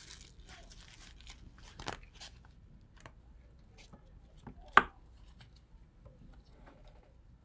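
Rustling and scattered light clicks from a blood pressure cuff being wrapped around an arm and its tubing handled, with one sharp knock about five seconds in, the loudest sound.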